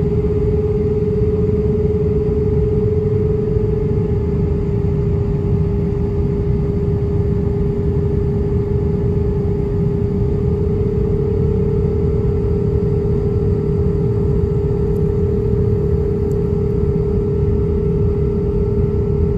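Airbus A320's jet engines at taxi power, heard inside the cabin: a steady low rumble with a constant whine that rises slightly about halfway through.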